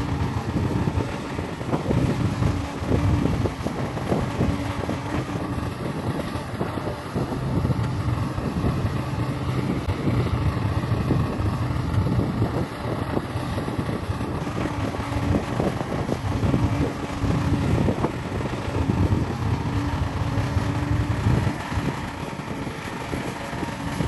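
Diesel engines of Caterpillar hydraulic excavators and a bulldozer working dirt, the engine note swelling and easing every few seconds under load, with scattered knocks and clanks from the digging.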